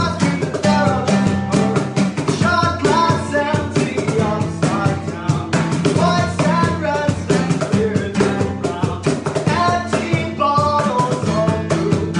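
Acoustic guitar strummed steadily with a cajon played by hand as a box drum, under a young man's singing voice.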